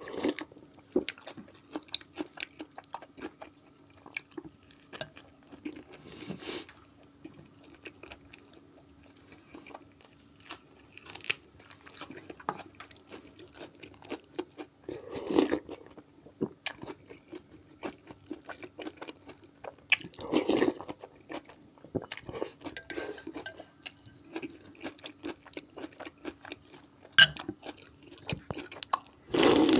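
Close-up eating sounds: chewing and crunching spoonfuls of okroshka, a cold soup of chopped vegetables, with a metal spoon clicking against a glass bowl. A faint steady hum sits underneath.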